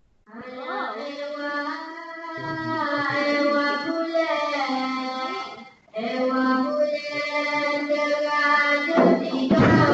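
Solo voice singing a slow, ornamented vocal line with long held notes that glide in pitch, typical of the opening solo of a Dikir Barat performance; it breaks off briefly about six seconds in, then resumes. Near the end, hand percussion with maracas comes in.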